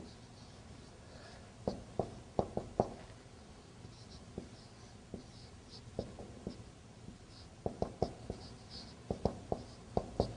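Marker writing on a whiteboard: irregular clusters of sharp taps as the tip strikes the board, with faint short squeaks of the tip gliding between them.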